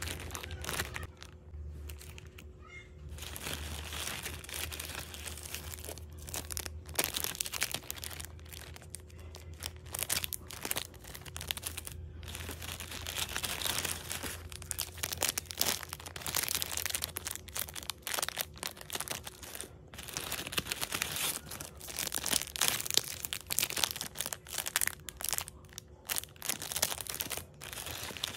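Plastic poly mailer bag crinkling and crackling irregularly as it is handled and opened, with a faint low hum under it until about two-thirds of the way through.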